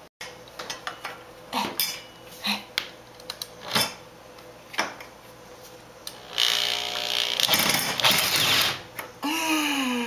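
Scattered clicks and knocks of handling tools, then a power drill runs in two bursts of about a second each, from about six seconds in.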